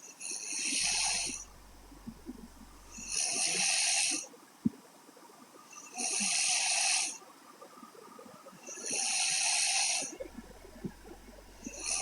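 A woman snoring in her sleep: five hissy snoring breaths, each about a second long, coming about every three seconds. There is a single sharp click about halfway through.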